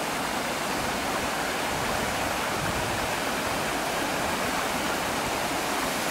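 Waterfall and rocky creek cascades rushing, a steady, unbroken hiss of falling water.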